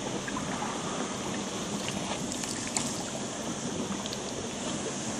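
Steady wash of sea water and wind noise, with a few faint clicks.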